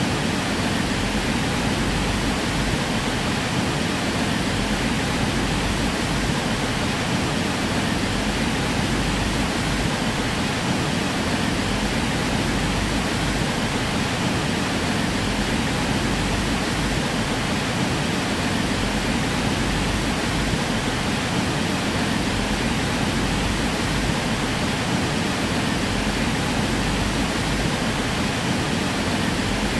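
Steady, loud rushing noise, even from low to high pitch and unchanging throughout, with no distinct events in it.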